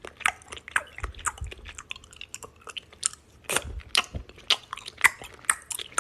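Crunchy chewing: irregular crisp crackles and clicks, several a second.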